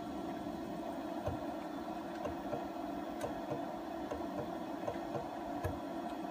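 Steady hum of a CNC X2 mini mill's stepper motors and drives holding position, with a few faint clicks spaced a second or two apart.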